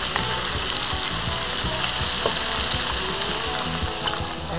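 Strips of bacon frying in a frying pan: a steady sizzle.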